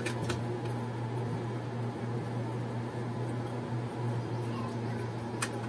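A steady low hum under a light hiss, with a couple of short clicks, one near the start and one about five and a half seconds in.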